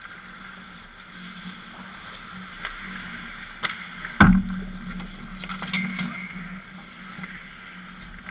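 Sharp knocks and clacks over a steady low hum, the loudest a single heavy bang about four seconds in.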